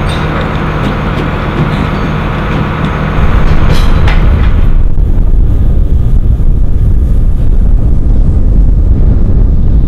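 Flatbed truck with a loader crane, its engine running with a steady low hum. From about four seconds in this gives way to heavy wind buffeting the microphone, a louder low rumble.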